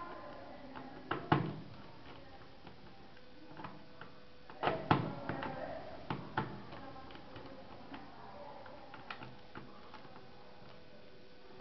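A screwdriver and hands working screws out of a Dell Studio 1558 laptop's plastic base, making small clicks and knocks. The sharpest come in pairs about a second in, around five seconds in and about six seconds in.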